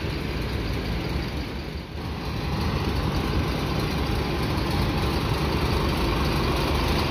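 Intercity coach's diesel engine idling, a steady low rumble that grows louder after about two seconds.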